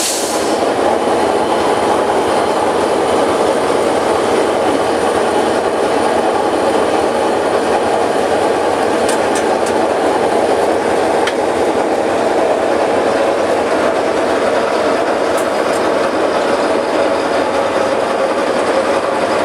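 Loud, steady running noise inside a diesel locomotive's cab while it is under way, with a few faint clicks in the middle.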